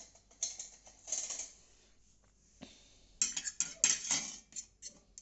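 A spoon stirring honey and ginger juice in a small container, clinking and scraping against its sides: a few scattered strokes at first, then a busy run of quick strokes from about three seconds in.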